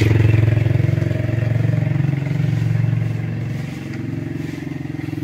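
An engine running, a steady low drone that gets quieter about three and a half seconds in.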